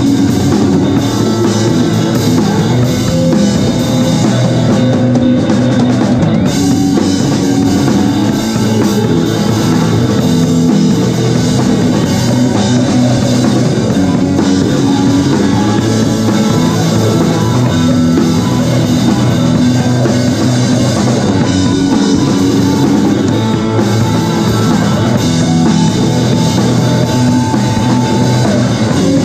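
Live rock band playing loud and steady: a drum kit with bass drum, and electric guitar.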